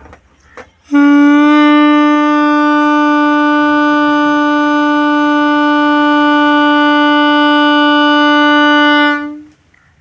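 Homemade balloon horn: air escaping from an inflated balloon through a PVC pipe vibrates the rubber and sounds one long, steady, train-horn-like tone. It starts about a second in and dies away near the end.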